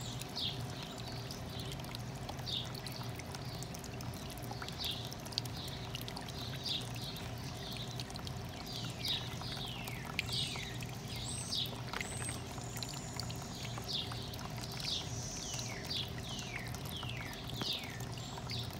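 Small rock garden waterfall running steadily, water trickling and splashing down over stone into a pond tub. A bird calls again and again throughout in short falling chirps.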